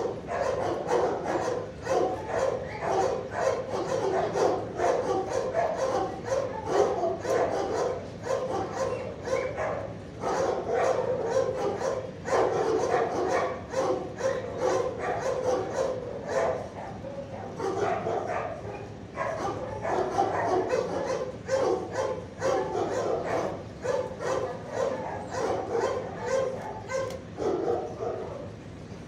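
Many dogs in a shelter kennel barking and yipping, on and on without a break.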